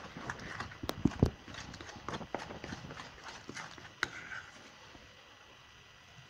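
Metal spoon clinking and scraping against a glass bowl while stirring a dry flour mix: a string of sharp taps in the first four seconds, the loudest about a second in, then only faint stirring.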